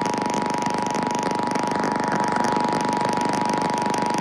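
Emergency Alert System two-tone attention signal, held steady without a break, received over AM radio under a thick layer of static hiss. It is the alert tone that comes just before the spoken test message.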